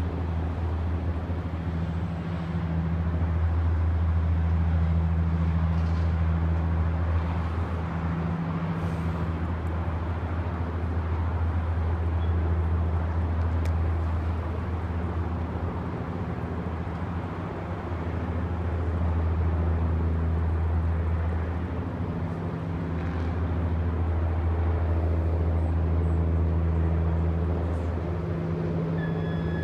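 A steady low engine hum with a few even overtones, swelling and easing slightly in loudness, under a faint wash of distant outdoor noise.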